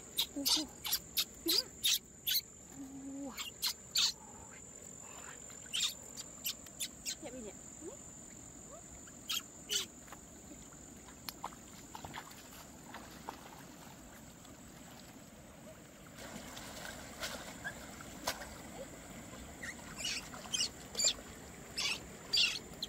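Insects, likely crickets, droning in one steady high-pitched tone. Over it, sharp clicks and knocks come in clusters, loudest near the start and again near the end.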